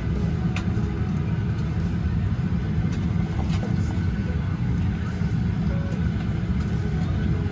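Steady low rumble of a vehicle's interior while travelling, with a few faint clicks and rattles.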